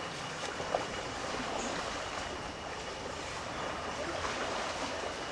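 Steady rushing noise of sea water and wind, with a faint steady high tone running through it.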